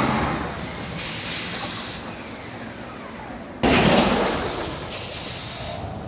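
Steel roller coaster train running past on its track, a steady rumble with hissing. About three and a half seconds in, a sudden louder rush of noise cuts in and slowly fades.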